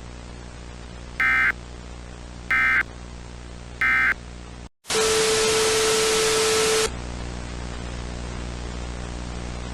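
Emergency Alert System end-of-message signal: three short bursts of warbling digital data tones about a second apart, over a steady electrical hum and hiss. After a brief dropout comes about two seconds of loud static with a steady low tone through it, then the hum and hiss carry on.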